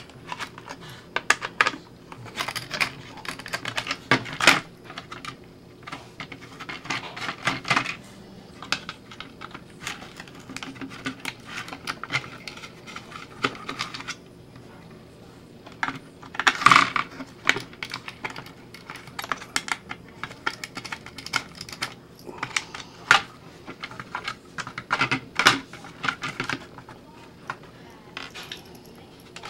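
Small screwdriver backing out the screws that hold the windshield in a hard plastic R/C car body, with irregular clicks, scrapes and taps as the shell is handled on a wooden table. A louder cluster of clatter comes a little past halfway.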